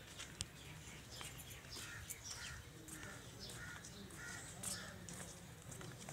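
Birds calling in the trees: a call repeated about twice a second, with higher chirps over it and a steady low hum beneath. There is one sharp click about half a second in.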